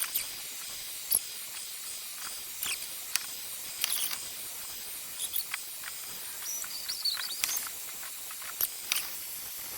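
Torch flame hissing steadily as it scorches a wooden axe handle, with scattered sharp crackles and pops.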